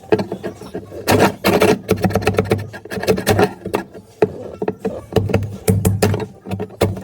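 Metal prying tool scraping and chipping at old frozen tar sound deadening on a car's sheet-metal floor, in quick, irregular scraping strokes.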